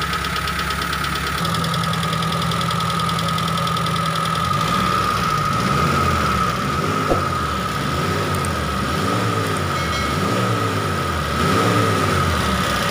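Suzuki T120SS fuel-injected four-cylinder engine idling, then blipped by hand at the throttle several times from about four seconds in, each rev rising and dropping back. The whistling whine it made when revved is now absent, because the dented oil pan no longer presses against the oil pump pickup. A steady high tone that does not follow the revs runs throughout.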